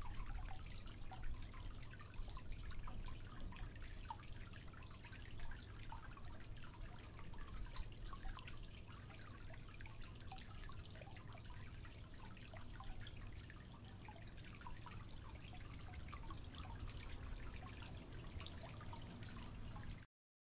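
Thick strawberry sauce being stirred with a wooden spoon in a stainless steel saucepan: many small wet clicks and plops over a low steady hum, stopping abruptly near the end.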